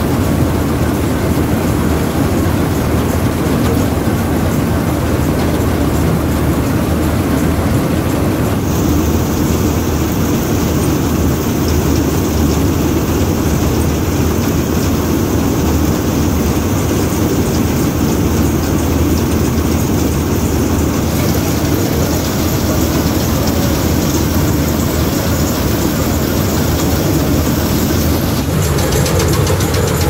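Combine harvester at work in a rice crop: its engine and threshing machinery run with a steady, loud drone while the header reel turns and cuts.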